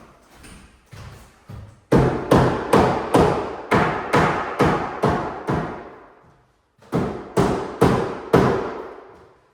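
Hammer tapping a frame into place in a wall opening: a few light taps, then a run of about ten firm blows at roughly two a second, a short pause, and four more blows, each ringing briefly.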